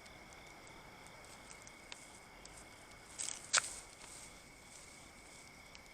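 Crickets trilling steadily, a high continuous drone. About three and a half seconds in comes a short rustle and then a sharp click.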